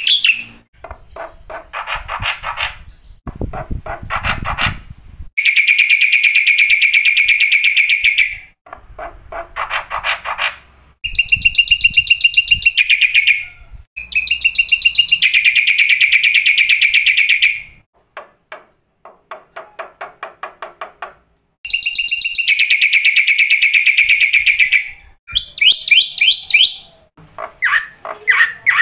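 Black-winged myna (jalak putih) singing: loud rasping phrases of two to three seconds, repeated about three times with short gaps, between runs of rapid clicking notes.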